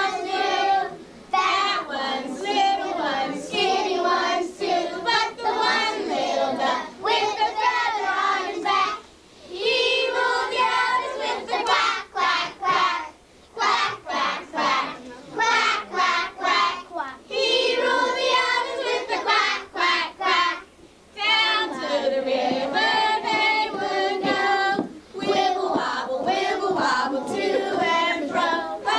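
A group of young children singing a song together in phrases, with brief pauses between them.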